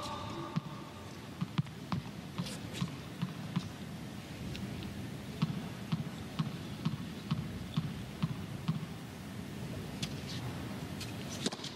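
Tennis ball bounced repeatedly on a hard court before a serve, a run of dull thumps about two or three a second over low background arena noise.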